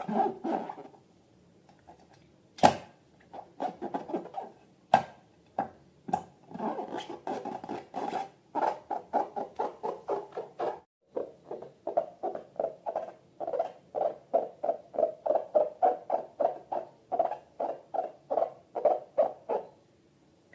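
Slime being worked by hand, a run of short sticky squishing sounds that settles into an even rhythm of about two to three a second, with a couple of sharp clicks in the first few seconds.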